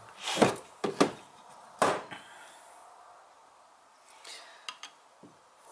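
Screwdriver prying and scraping at the old rubber rear main seal in an aluminum seal housing. Four sharp knocks and scrapes come in the first two seconds, then a few light clicks near the end.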